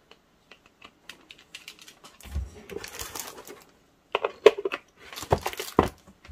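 Plastic UV/LED nail lamp being handled and shifted on a desk while its power cord is connected: a run of light clicks and knocks, with a dull thump about two and a half seconds in.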